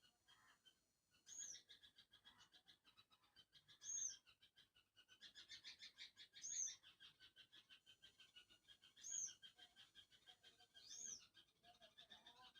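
Faint animal calls: a rapid pulsing, croak-like train, with a short high chirp repeating every two to three seconds.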